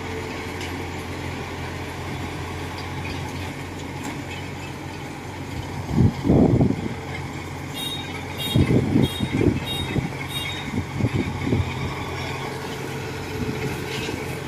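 Tracked rice combine harvester's diesel engine running steadily as the machine crawls over a high dike, with heavier low surges about six seconds in and again from about eight to eleven seconds. A quick run of short high beeps sounds around eight to ten seconds.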